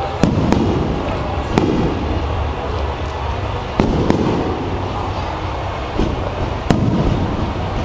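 Aerial fireworks shells bursting high overhead: about half a dozen sharp bangs at irregular intervals, each trailing off in a low rumbling echo, over a continuous low rumble of the display.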